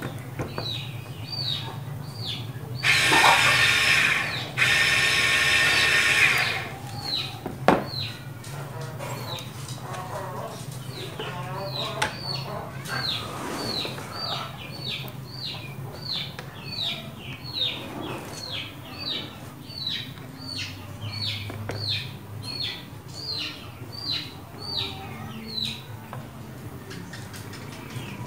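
775 DC motor briefly run twice a few seconds in, a loud whine lasting about one second and then about two. Short high chirps repeat about twice a second throughout over a steady low hum.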